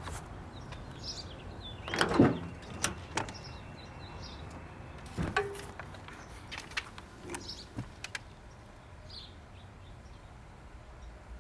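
A few knocks and clicks, the loudest about two seconds in, then smaller ticks for several seconds, with faint bird chirps in the background.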